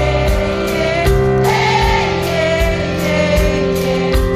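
Live band music with a steady drum and cymbal beat under held sung notes, many voices singing along.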